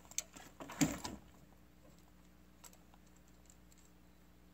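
Clicks and clatter of an AR-15 rifle and its sling being handled as a weapon light is fitted to the forend. The clicks are loudest about a second in, and only faint ticks follow.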